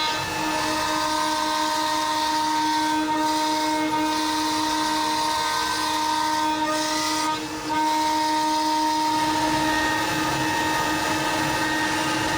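CNC router spindle whining steadily as it cuts a clear acrylic sheet, with dust extraction hissing along with it. The sound dips briefly about seven and a half seconds in.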